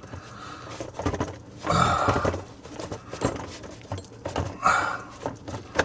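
A sink supply hose's threaded nut being unscrewed from the cold-water shutoff valve under a kitchen sink: scattered metal clicks and scraping, with two louder rushing noises, one about two seconds in and one near the end.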